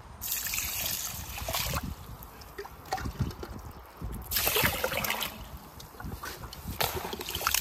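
Water sloshing and trickling in three separate bursts, with small clicks and knocks between them.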